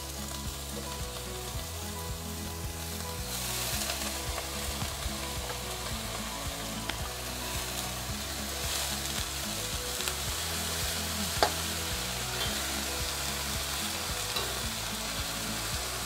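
Fern shoots (paku pakis) sizzling in hot oil in a wok as they are stir-fried with a spatula. The sizzle grows fuller about three seconds in, and there is a single sharp clink of the spatula against the wok near the eleven-second mark.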